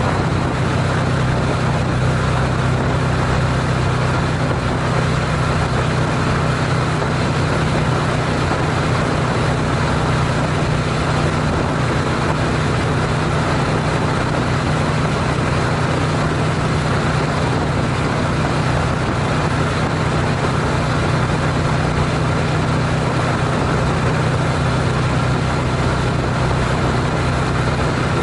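Honda CTX700N's parallel-twin engine humming steadily at highway cruise, about 70 mph, under a constant rush of wind and tyre noise.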